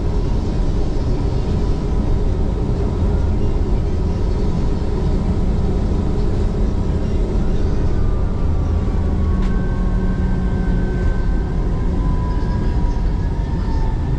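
An MRT-3 light rail train running, heard from inside the car: a steady rumble of wheels and traction motors. Over the last several seconds a whine falls slowly in pitch as the train slows into a station.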